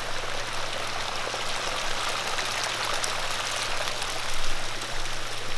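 Hot spring water running steadily into a pool: a constant rushing hiss of flowing water, with a faint low hum underneath.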